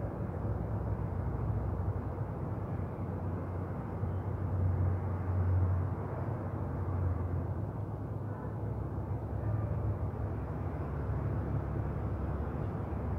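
Steady low rumbling background noise, slightly louder about five seconds in.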